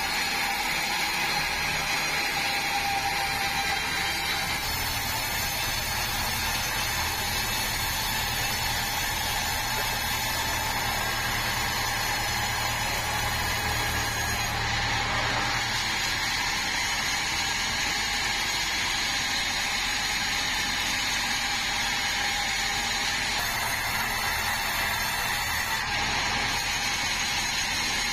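Band sawmill running steadily, its machine noise at an even level throughout, with the low hum shifting about five seconds in and again about sixteen seconds in.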